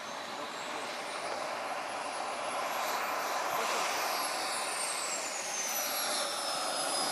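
Small gas-turbine engine of a radio-controlled model F-16 jet on its landing approach. A steady jet rush grows louder, with a high whine that rises in pitch and then falls away again from about halfway through.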